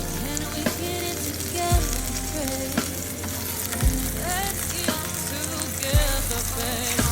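Food sizzling as it fries in a pan, a steady hiss, under background music with a drum beat about every two seconds.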